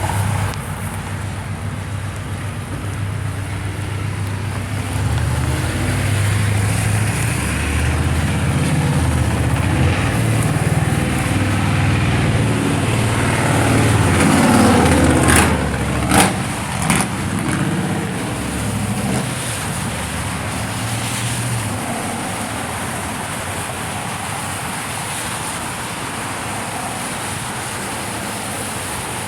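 A motor vehicle passes on a wet road. Its engine rumble and tyre noise build over several seconds, peak about halfway with a few sharp clicks, then fade. A steady hiss of rain runs underneath throughout.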